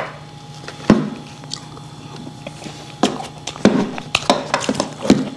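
Sounds of a meal: scattered clinks and taps of plates and utensils, with some soft mouth and handling noises, over a steady low hum.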